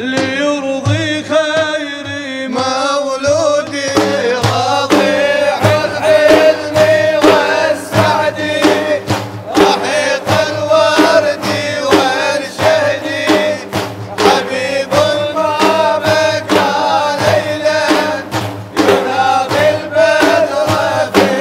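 A male voice singing an Arabic religious praise song (madih), joined about four seconds in by large frame drums beating a steady driving rhythm, with chanted singing continuing over the drums.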